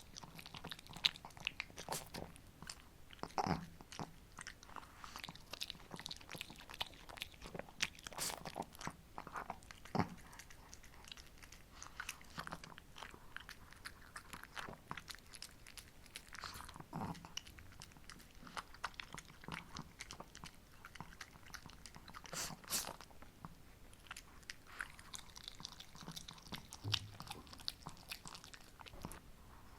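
Shih Tzu dog chewing and crunching on a homemade treat, with irregular close-up bites and crackles.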